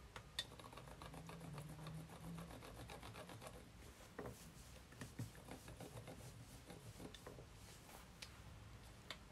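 Faint rubbing and patting of hands working a ball of soft yeast dough on a floured countertop and pressing it out flat with the fingers. A quick run of light taps comes first, then a few scattered soft knocks.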